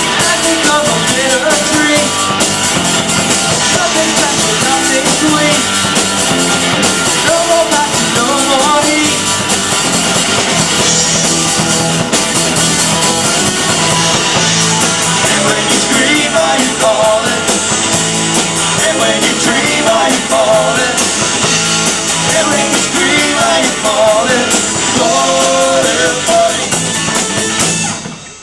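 Live rock band playing at full volume: guitars, bass and drum kit, with a singing voice over them. The sound drops away suddenly just before the end.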